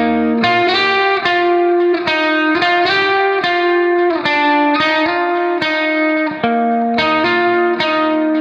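Instrumental background music: a plucked-string melody, notes struck about twice a second and ringing out.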